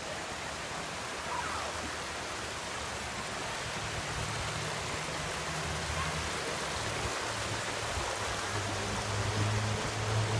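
Shallow rocky creek water rushing over stones in small riffles: a steady hiss. A low hum joins about halfway through and grows near the end.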